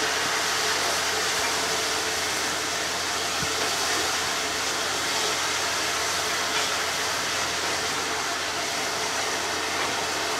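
Steam locomotive standing at a platform, giving off a steady hiss of steam.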